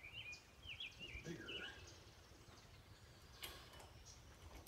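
Faint birdsong: a few short, chirping notes in the first second and a half, then quiet room tone with a faint click about three and a half seconds in.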